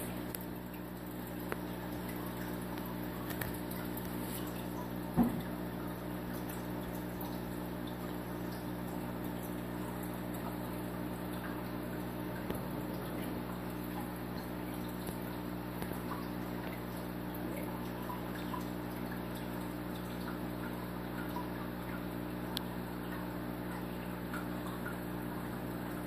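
Steady low machine hum made of several fixed tones, with a few faint ticks and one sharper click about five seconds in.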